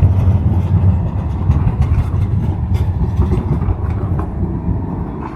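Low rumble of a passing vehicle with rattling clicks, slowly fading toward the end.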